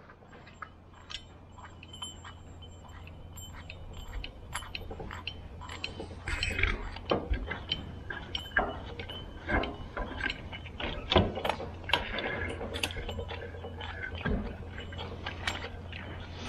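Roller chain clicking and rattling over a sprocket as a hand wheel is turned to feed a homemade lathe carriage along a chain rack; the chain is still slack. A steady low hum runs underneath.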